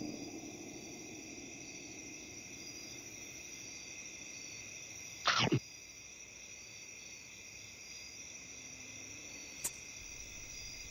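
The tail of a low rumbling tummy-growl sound effect fades out in the first second, over steady cricket chirping. About five seconds in comes one short, loud noise, then a faint click near the end.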